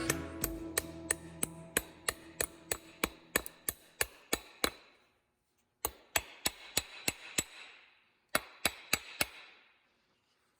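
Rapid hammer blows, about three a second, each a sharp strike with a short ring. They come in three runs: a long run of about fifteen, then about six, then four, with brief pauses between.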